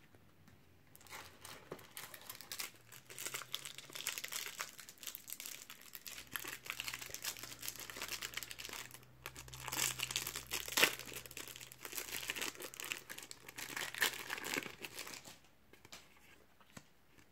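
Foil wrapper of a Topps Match Attax trading-card pack crinkling as it is handled and torn open by hand, with a few louder crackles partway through; it stops a couple of seconds before the end.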